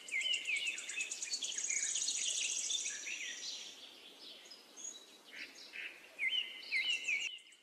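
Birds chirping and calling, with a fast high trill through about the first three and a half seconds and repeated sweeping chirps near the end.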